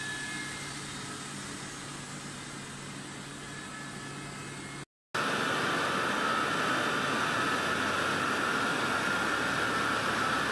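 Steady machine noise from a polypropylene FDY yarn spinning and drawing line. After a brief dropout about halfway, it comes back louder and higher-pitched.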